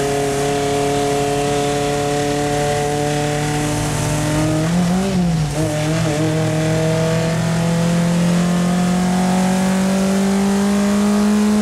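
Triumph Spitfire Mk3's four-cylinder engine heard from inside the cabin, pulling hard under racing load with its revs climbing slowly and steadily. About five seconds in the revs briefly flare and dip before the engine settles and keeps pulling.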